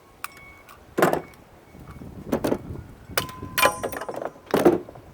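Four metallic knocks and clanks from hand tools and parts of a shop vac's electric motor being taken apart; the third rings briefly like struck metal.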